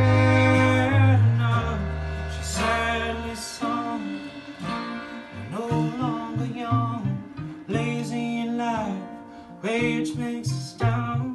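Live small band with fiddle, acoustic guitar and drums playing in a room. A loud full-band passage with held low notes drops away after about three and a half seconds to a quieter passage.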